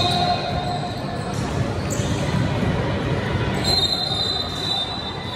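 A basketball bouncing repeatedly on a hard gym floor in a large echoing hall, with background voices and a thin high tone about four seconds in.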